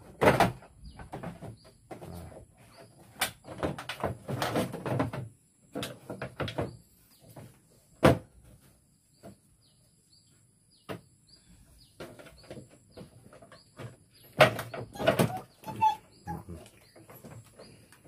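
Plastic cabinet panels of a Sharp washing machine being pried loose and lifted, giving irregular knocks, clacks and scraping rattles, with a quiet pause partway through. The casing is being opened to get at the dead wash timer.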